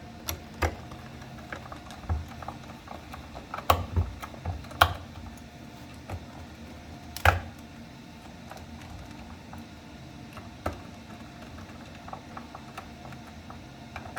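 Scattered clicks and taps of a Torx T20 screwdriver and screws as a cover is screwed back onto a micro cell radio unit, with a few louder knocks about four, five and seven seconds in.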